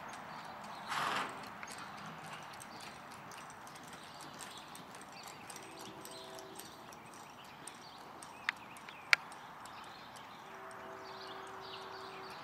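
A ridden horse's hoofbeats, light and irregular, at a walk and slow jog on soft arena dirt. A short rush of noise comes about a second in, and two sharp clicks come past the middle, the second of them the loudest sound.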